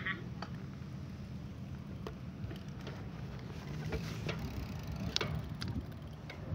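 Low steady outdoor rumble with a few faint, scattered clicks and ticks.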